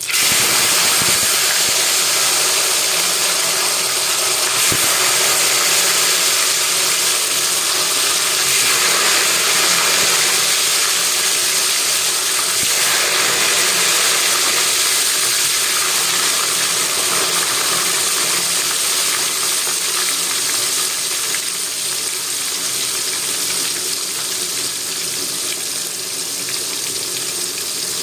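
Tofu sizzling in hot oil: a loud, dense crackling hiss that starts suddenly, as if the tofu has just gone into the oil, and eases a little over time.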